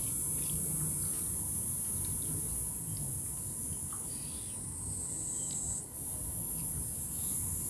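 A steady, high-pitched insect drone that dips in pitch briefly about five seconds in, with a few faint clicks.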